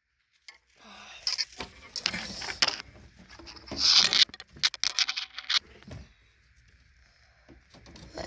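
Fishing rods and reels knocking, clicking and rustling against each other as one is worked loose from a crowded pile, for about five seconds. Then only a faint steady hum remains.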